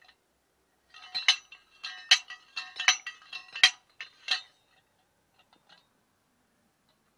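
Homemade sliding hammer driving a metal pepper-support pipe into the ground: a run of about five or six ringing metal-on-metal clanks, each under a second apart, stopping about four and a half seconds in.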